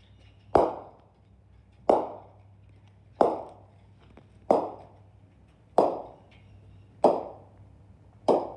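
Two 12.5-pound bowling balls hanging on wire ropes swinging together and clacking against each other, a hard knock about every 1.3 seconds, seven times, each with a short ringing decay.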